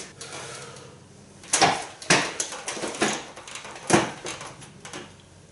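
A man breathing hard after a heavy set, with three short, sharp bursts of sound over a couple of seconds. The last, about four seconds in, is a thud, fitting 30 kg dumbbells being brought up to the shoulders.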